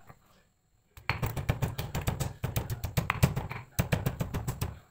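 Stone pestle pounding garlic cloves in a granite mortar: rapid repeated knocks, several strikes a second, starting about a second in and pausing briefly twice.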